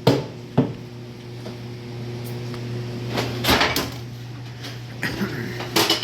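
Body hammer tapping on the sheet metal of a car's quarter panel: two sharp taps right at the start, then looser knocks and clatter about halfway through and near the end, over a steady low hum.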